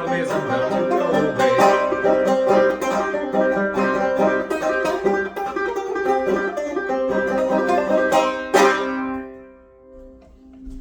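Clawhammer banjo in double C tuning playing a fast instrumental run, then one last hard strum about two-thirds through that rings out and dies away: the tune's sudden end.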